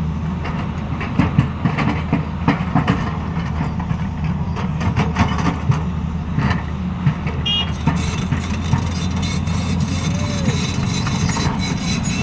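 Tata Hitachi tracked excavator's diesel engine running steadily under load while the bucket digs into a rocky hillside, with frequent knocks and clatter of rock and soil, thickest in the first half.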